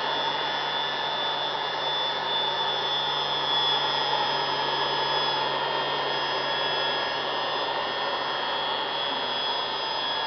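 Electric air blower of a lab-scale fluidized bed dryer running steadily, turned up in speed: a motor whine over a rush of air. The air is blowing up through the granule bed and fluidizing it.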